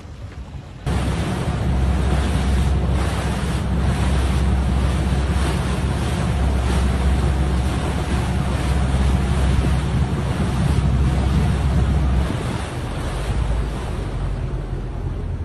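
Wind buffeting a handheld phone's microphone outdoors over open water: a steady, loud, low rumbling rush that starts abruptly about a second in and eases a little near the end.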